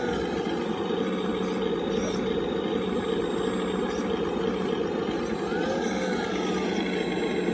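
Radio-controlled long-reach CAT hydraulic excavator with its hydraulic pump running steadily as the boom and arm swing and dig. Its pitch briefly rises and falls about two-thirds of the way through as the load changes.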